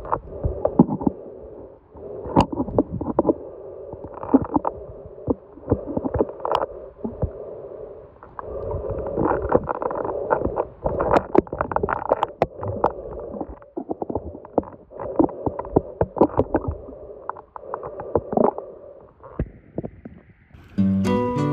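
Muffled underwater noise from a camera held just under the surface while snorkeling: water sloshing and gurgling around it in irregular swells, with many sharp knocks and clicks. Near the end the camera comes up out of the water and the sound changes to a steadier hiss.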